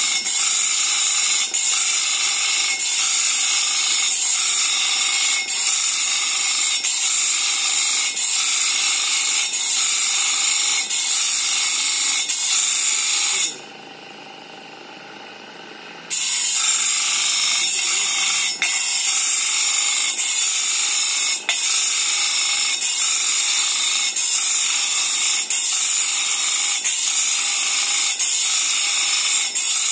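Electric bench grinder's abrasive wheel grinding the steel teeth of a sawmill bandsaw blade to sharpen it: a steady, loud, high-pitched grinding hiss with a regular tick about every three quarters of a second. About halfway through, the grinding stops and the sound drops much quieter for about two and a half seconds, then resumes.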